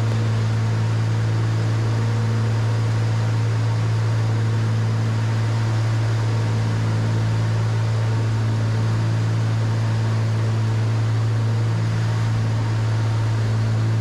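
Cabin drone of a Cessna 310Q's two six-cylinder Continental piston engines and propellers in flight: a steady low hum with a set of even tones above it, unchanging in level.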